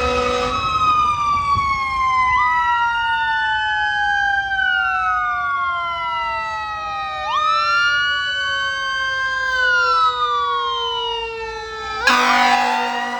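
Fire engine sirens. An electronic siren wails up and down in slow cycles about five seconds long, over a mechanical siren whose pitch slides slowly down as it winds down. A blast of the air horn sounds at the very start and again near the end, where the mechanical siren winds back up.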